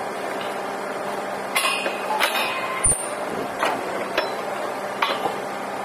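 A steady mechanical hum with about six sharp metallic clanks and knocks spread over a few seconds, one near the middle carrying a low thud.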